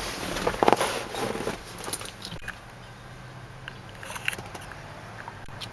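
Rustling and scraping of clothing and handling noise as a person settles into a pickup truck's driver's seat, with a few light clicks, busiest in the first two seconds.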